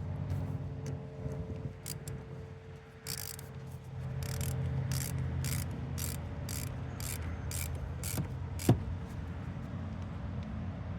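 Ratchet wrench clicking in short runs as bolts are tightened down in a star pattern, over a steady low hum. One sharp metallic knock about three-quarters of the way through.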